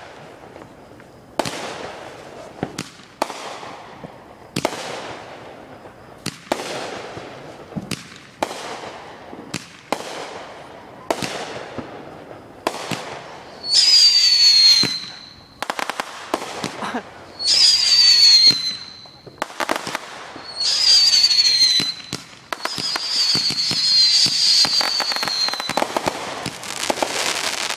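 Fireworks going off: a run of bangs about one to one and a half seconds apart, each trailing away. From about halfway come loud hissing bursts with a falling whistle, four times, and then dense crackling near the end.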